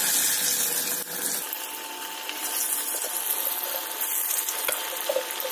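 Marinated chicken pieces sizzling hard as they are slid one by one into hot oil and start deep-frying, with a few light clicks.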